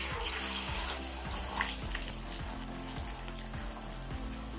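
Beaten eggs poured into hot oil in an aluminium kadai, sizzling as they hit the pan; the frying hiss starts suddenly and carries on steadily as the egg sets.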